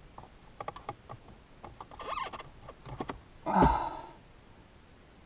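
Small clicks and rattles of plastic as a car airbag module and its wiring plug are handled and the plug is tried in its socket under the dashboard, then a person's sigh about three and a half seconds in, the loudest sound.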